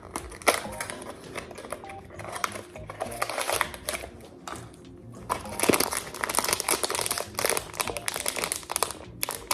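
Hands opening a small cardboard blind box and handling the crinkly foil packet that holds the toy figure: scattered crackles and rustles at first, turning into steady, louder crinkling from about halfway through.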